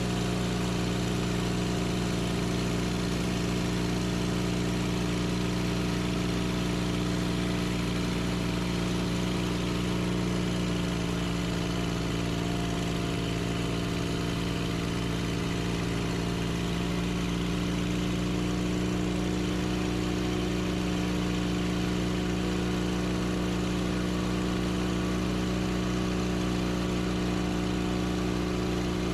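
Sawmill engine running at a steady speed, with no revving or change in load.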